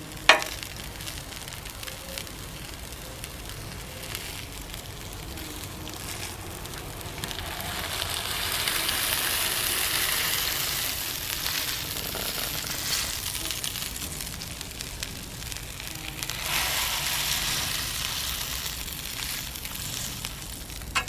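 Meatloaf slices sizzling on a hot flat-top griddle, the sizzle swelling louder twice as a spatula presses them flat. A sharp click sounds just after the start.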